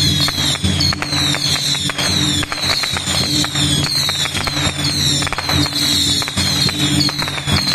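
A string of firecrackers going off in continuous, rapid crackling pops.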